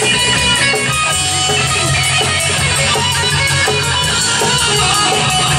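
Guitar-led band music playing an instrumental passage without singing, over a steady bass line.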